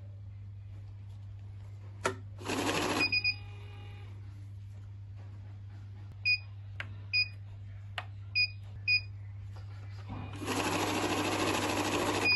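XD-6000 value money counter feeding banknotes: a short whir about two and a half seconds in, then two quick beeps. Several more single beeps and light clicks follow. Near the end the feed runs steadily for about two seconds as a stack of dollar bills is counted, all over a steady low hum.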